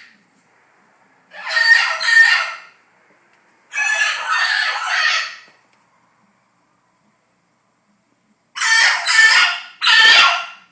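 Pet Amazon parrots screaming: four loud, harsh screams of one to two seconds each, the last two close together after a pause of about three seconds.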